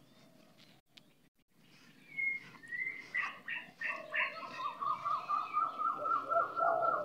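A bird calling: a few high chirps about two seconds in, then a fast, even run of repeated notes, about three to four a second, climbing slightly in pitch, with a lower tone beneath them.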